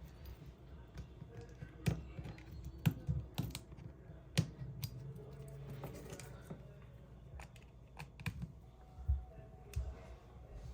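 Irregular small clicks and taps of hand tools and fingers working on a mobile phone's plastic parts, picking off the plastic that covers the screws.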